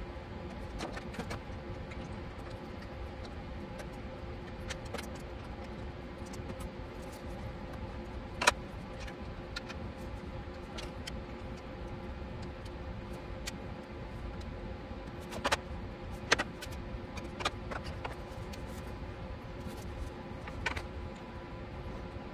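Scattered sharp clicks and knocks of hard resin statue parts being handled and fitted together on their pegs and magnets, over a steady background hum. The loudest knocks come about a third of the way in and again around two-thirds of the way through.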